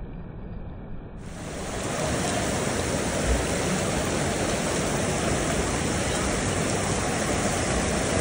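Steady rush of water from a waterfall, then about a second in a louder, closer, even rush of a fast-flowing mountain stream running in white water.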